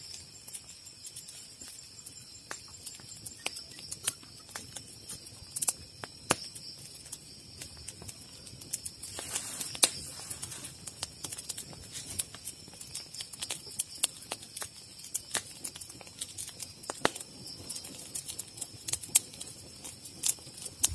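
Scattered, irregular sharp taps and clicks over a steady high-pitched insect drone.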